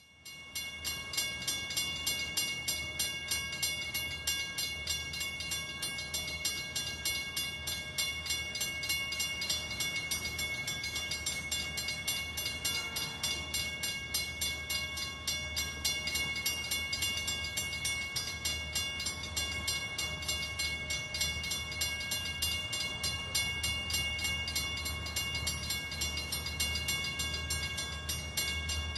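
ALCO RSD-16 diesel-electric locomotive running as it rolls slowly overhead: a steady low drone from its diesel engine with a rapid, even pulsing and a few steady high tones on top.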